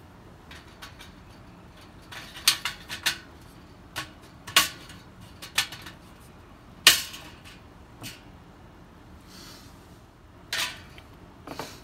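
Thin sheet-metal pot-support strips clinking and scraping against a tin-can hobo stove as they are slotted into its rim crosswise: a string of sharp, irregularly spaced metallic clicks and clanks, the loudest about seven seconds in.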